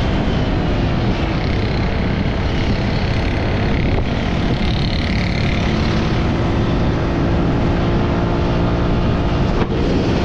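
Honda Click V3 scooter being ridden, its engine and CVT running under wind noise on the microphone; the engine pitch dips around the middle, then climbs again as it speeds up.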